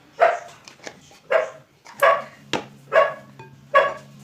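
A dog barking repeatedly, about five short barks spaced evenly, with a low steady hum starting about halfway through.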